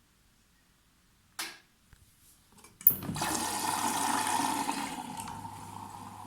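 Beko washing machine starting a cycle: a click, then a sharper click about three seconds in, followed by water rushing in as the drum fills. The rush is loud at first, then settles to a steadier flow with a low hum underneath.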